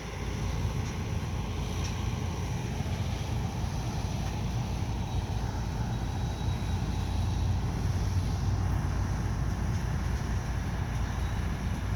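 A train rumbling by: a steady low rumble that comes up at the start and swells a little partway through.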